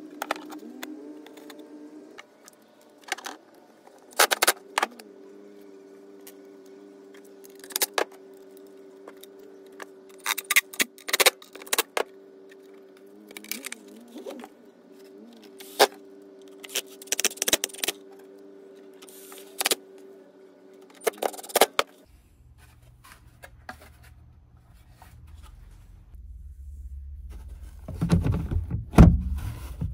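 Clicks, clinks and clatter of hard plastic and metal as a Kicker DSC650 coaxial car speaker is handled and seated in a plastic speaker pod, over a steady low hum. Near the end, a low rumble and a run of loud knocks as the pod is pressed into a car's rear deck.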